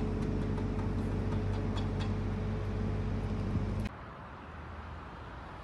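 A diesel engine running steadily, with a few light clicks over it; the sound cuts off abruptly about four seconds in, leaving a faint hiss.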